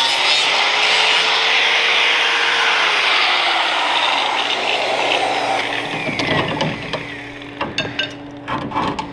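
A power tool cutting through rusted sheet metal of a car's rocker panel makes a loud, dense grinding hiss that eases off about five seconds in. After that a low steady hum remains, with scattered clicks and clatter of metal.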